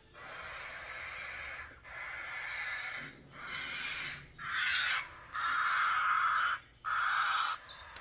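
Nestling chicks giving raspy begging calls in a series of bursts about a second long, louder in the second half, as they wait to be hand-fed formula.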